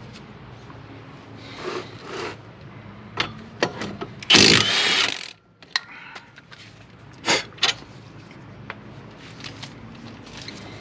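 Metal brake parts and hand tools clinking and scraping as a front brake caliper assembly is worked loose, with one louder, longer rasping scrape about four seconds in and a couple of sharp knocks near seven seconds.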